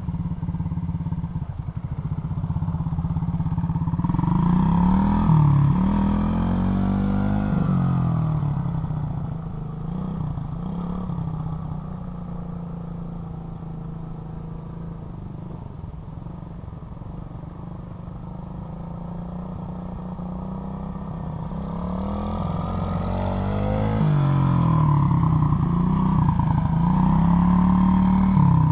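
SSR Motorsports 110cc pit bike's single-cylinder four-stroke engine running as the bike is ridden around. The engine note bends up and down and grows louder as the bike passes close by about five seconds in, then fades while it is farther off. It swells again from a little past twenty seconds in.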